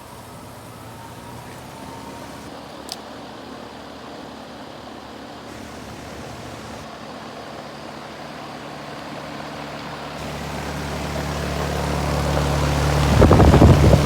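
Bryant Legacy Line heat pump outdoor unit humming steadily with a low, even drone during its defrost cycle, with a single sharp click about three seconds in. From about ten seconds a rushing sound rises and turns into loud, gusty air noise near the end.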